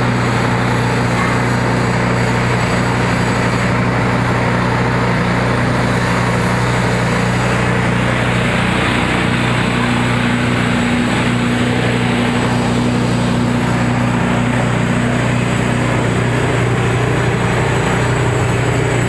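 Clove-flower threshing machine running steadily under power, a constant motor hum with the rushing, rattling noise of its threshing drum.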